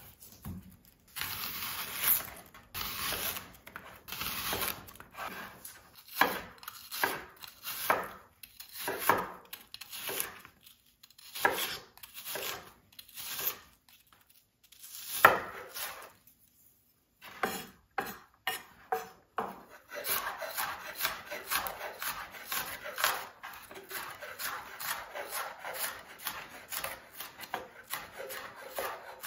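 Chef's knife cutting a peeled onion on a bamboo cutting board, the blade knocking on the wood with each stroke. Separate slicing strokes in the first half give way, after a short pause, to rapid, steady chopping as the onion is minced fine.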